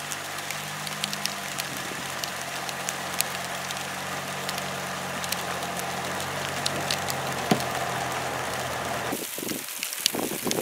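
Sleet pellets and freezing rain falling on icy pavement: a steady hiss full of small sharp ticks, with a vehicle engine idling as a steady low hum underneath. About nine seconds in the engine hum drops out and only the freezing rain goes on, with some uneven low rumble.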